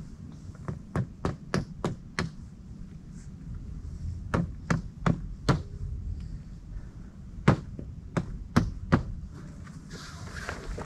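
Sharp taps on a hard surface, in three clusters of four to six, over a steady low rumble.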